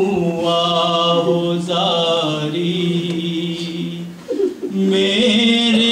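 A man chanting a noha, an Urdu mourning lament, with no instruments, in long held notes. There is a short break for breath about four seconds in.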